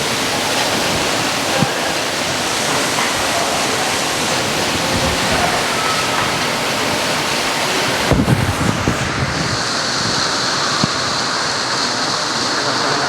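Morcos RM600 stainless steel double ribbon mixer running, a loud steady machine noise. A few knocks come about eight seconds in, and then a steady high whine joins the noise.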